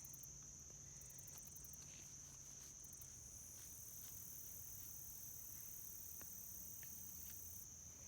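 Crickets and other insects chirring steadily in a high-pitched chorus, with a few faint ticks.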